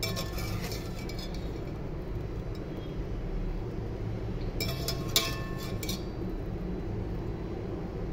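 Stainless steel wire skimmer clinking against a metal colander and pot while boiled raw-mango pieces are scooped out and tipped in to drain. A few clinks come right at the start, and a denser run of clinks about halfway through holds the loudest knock, over a steady low hum.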